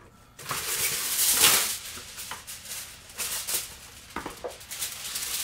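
Sheet of Reynolds Wrap aluminum foil pulled off the roll and torn free, loudest in the first two seconds, then crinkling in short scattered rustles as the sheet is handled.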